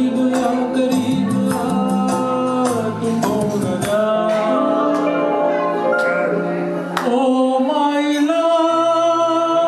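A man singing a song into a handheld microphone with backing music, amplified through PA loudspeakers. He holds long notes that bend in pitch, over a steady beat.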